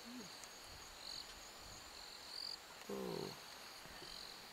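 Night insects chirping in short, high bursts about once a second over faint steady background hiss. About three seconds in, a person briefly murmurs a sound.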